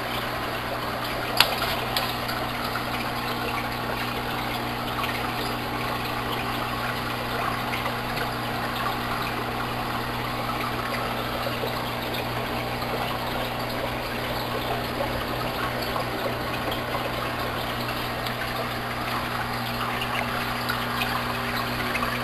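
Aquarium air pumps humming steadily under the bubbling of air diffusers and the splash of filter water. One sharp click about a second and a half in.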